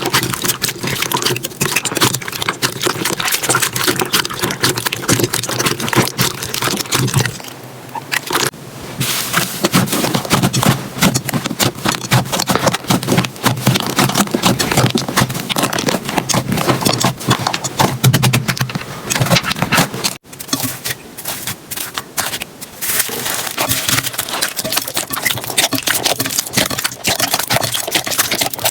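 Slime being squeezed and poked by hand, a dense run of crackling, clicking pops and sticky scraping. The texture changes abruptly about seven seconds in and again about twenty seconds in.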